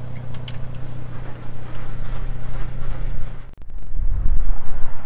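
Vehicle engine idling with a steady low hum. About three and a half seconds in it breaks off briefly, and an uneven low rumble follows.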